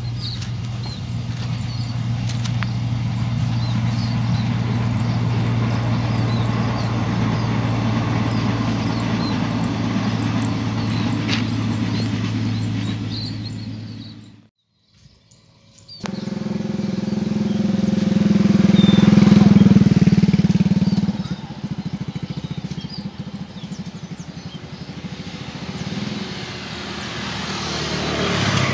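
Passenger train running past in the distance, a steady low engine drone with birds chirping over it. The sound fades out about halfway, then another engine sound swells up and dies away, rising again near the end.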